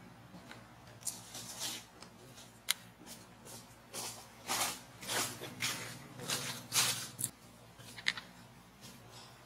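Dry leaf litter and a twig crackling and rustling in short, irregular bursts as macaques shift about and handle a stick, busiest in the middle of the stretch.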